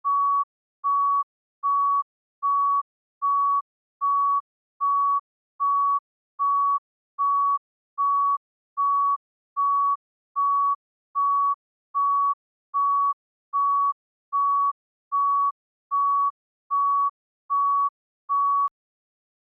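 Heart monitor beeping: a single pure tone in short, even beeps, about one every 0.8 seconds, the steady rhythm of a regular pulse of roughly 75 beats a minute. The beeps stop abruptly near the end.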